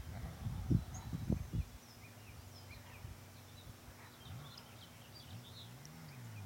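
Honda CBX's inline-six engine idling on its stock exhaust after a tune-up. There are a few short low thumps in the first couple of seconds, and the engine note briefly rises and falls near the end. Birds chirp faintly.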